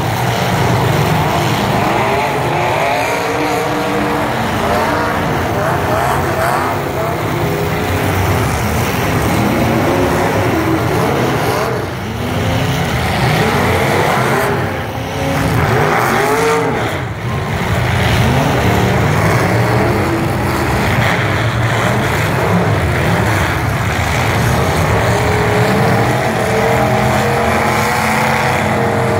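Engines of several demolition derby trucks running and revving at once, their pitches rising and falling and overlapping.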